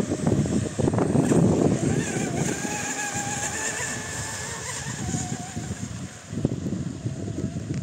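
Volantex Atomic RC speedboat running flat out across the water, its electric motor giving a high whine that slowly falls in pitch and fades as the boat moves away. A loud, low, rough rushing noise fills the first couple of seconds.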